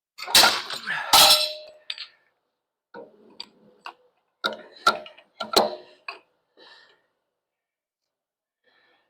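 Metal clanks and clinks as steel rack pieces are handled and knocked against each other and the work surface. Two loud knocks come about a second in, one leaving a short ring, followed by lighter scattered taps.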